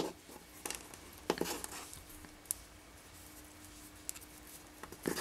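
Faint handling noise: a few soft ticks and rustles as fingers move macramé threads against paper, over a faint steady hum.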